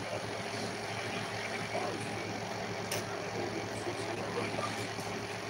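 Steady low hum with room noise, and one faint click about three seconds in.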